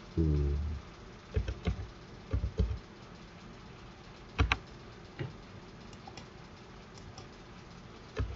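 Computer keyboard keys being tapped one at a time at an uneven pace as digits are entered into a spreadsheet cell, with one sharper keystroke about halfway through. A brief voiced sound comes right at the start.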